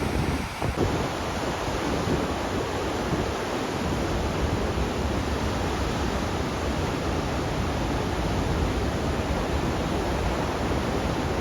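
Steady rushing noise of typhoon wind, with gusts buffeting the microphone in a low, uneven rumble.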